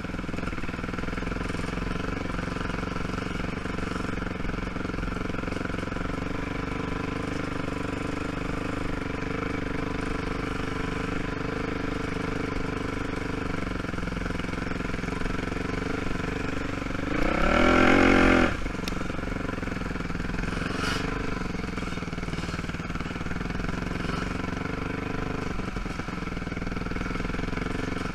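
ATV engine running steadily at low speed. About two-thirds of the way through it revs briefly: the pitch rises and it gets louder for a second or so, then drops back.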